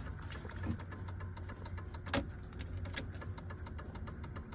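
Truck idling with a steady low hum, with a run of quick light clicks over it and a few louder knocks.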